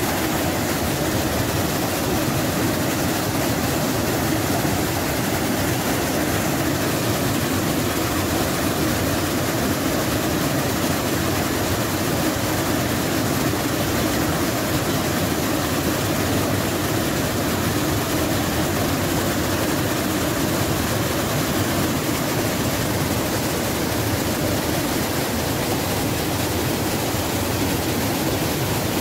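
Steady roar of a waterfall: the Allt Smoo burn crashing over rocks on its way down into Smoo Cave, an even rushing with no breaks.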